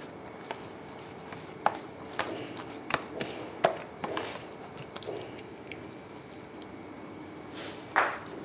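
Hands kneading crumbly chhena (fresh curd cheese) mixed with arrowroot in a stainless steel bowl: soft, irregular squishing and pressing, with a few sharp clicks and light knocks against the bowl.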